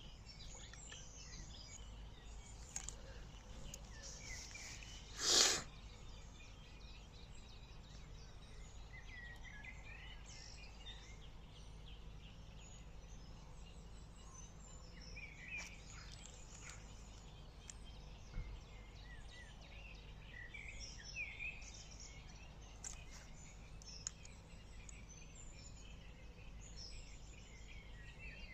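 Small songbirds chirping and calling repeatedly over a faint steady outdoor background. About five seconds in, a single brief louder noise stands out.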